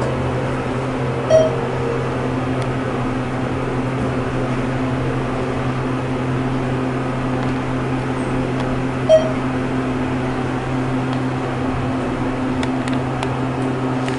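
Inside a ThyssenKrupp elevator car travelling down: a steady low hum from the moving car and its ventilation. Two short single-tone electronic beeps come about eight seconds apart, one soon after the start and one a little past the middle.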